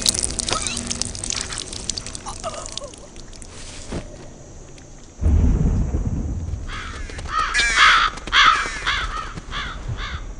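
A deep rumble like thunder sets in suddenly about halfway, and over it crows caw several times in the last few seconds.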